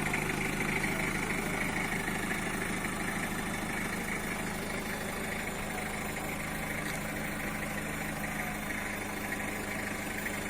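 Mitsubishi L300 minibus engine idling steadily.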